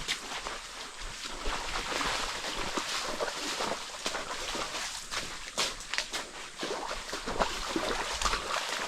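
Water rushing and splashing at a waterfall and its pool, a steady hiss broken by many short splashes.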